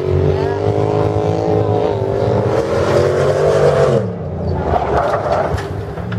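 Off-road 4x4's engine held at high revs, then falling away about four seconds in.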